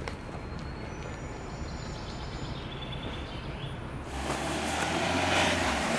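Outdoor street ambience: a low, steady traffic hum, then a louder rushing noise that builds from about four seconds in.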